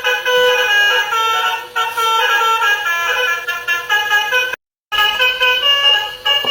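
Telolet horn on a truck playing a quick tune of stepping horn notes, several pitches sounding together. The sound cuts out completely for a moment about two-thirds of the way through, then the tune carries on.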